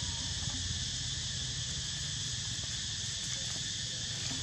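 Steady high-pitched drone of insects, with a low rumble underneath.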